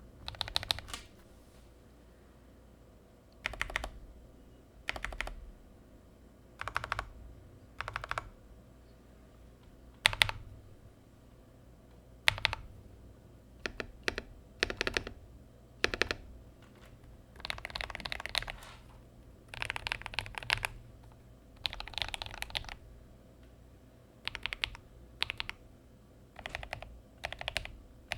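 Typing on a Gamakay LK67 mechanical keyboard with lubed Akko Rose Red linear switches. Keys are struck in short bursts and single presses with pauses between, with a few longer runs of keystrokes a little past the middle.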